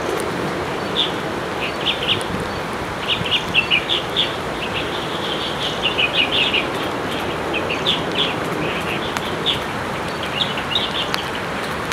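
Chinese hwamei (melodious laughingthrush) calling: short, high chirps in quick clusters, repeated several times over a steady background hiss.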